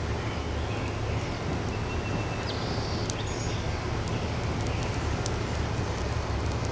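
Small twig fire just catching, with scattered faint crackles and ticks over a steady low rumble.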